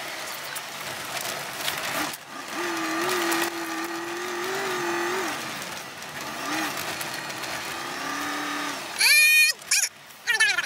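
Truck driving on snowy streets, heard from inside the cab: steady road and engine noise, with a held tone for about three seconds. About nine seconds in comes a short, loud, high-pitched squeal that drops in pitch as it stops, and a shorter one follows just before the end.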